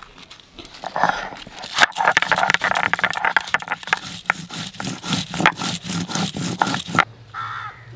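Stone roller of a sil-batta crushing and grinding green and dried chillies on a flat stone slab: a quick run of rough scraping strokes, stone on stone. It stops about seven seconds in.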